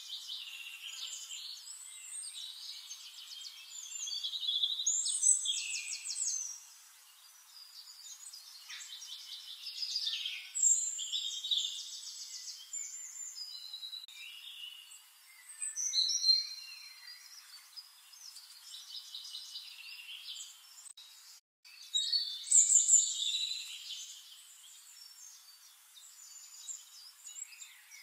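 Several songbirds singing: a busy mix of high chirps and fast, even trills, some calls louder than the rest, with a brief cut to silence about three-quarters of the way through.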